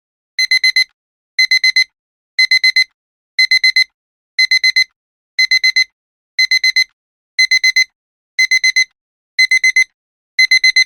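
Digital alarm-clock beeping that signals a countdown timer has run out: groups of four quick, high beeps repeating once a second, starting about half a second in.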